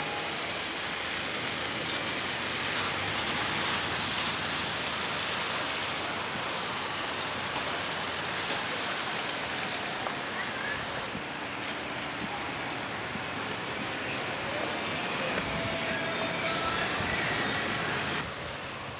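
Steady outdoor street noise, a continuous hiss with a car driving past on the wet road. The noise drops off suddenly near the end.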